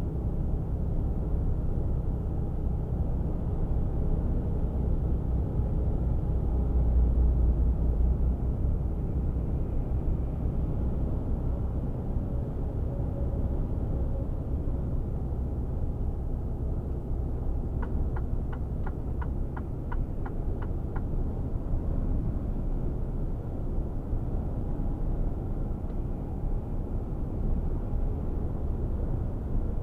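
Inside the cab of a Mercedes-Benz Actros 1848 truck at highway speed: the steady low drone of its straight-six diesel mixed with tyre and road noise, swelling slightly a few seconds in. About two-thirds through comes a short run of quick, even ticks lasting about three seconds.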